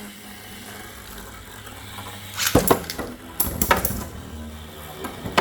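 Beyblade spinning tops clashing in the stadium: a run of sharp clacks and knocks of metal tops striking, starting about halfway through after a quieter start.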